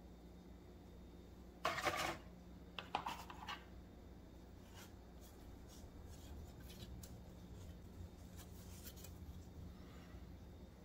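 Plastic model-kit sprues being handled and turned over, the plastic rattling and rubbing. There are two louder bursts about two and three seconds in, then only faint light clicks over a steady low hum.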